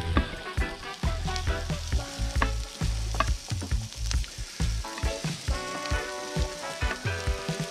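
Sliced onions and garlic sizzling in a frying pan while a wooden spatula stirs them, the spatula scraping and tapping the pan again and again.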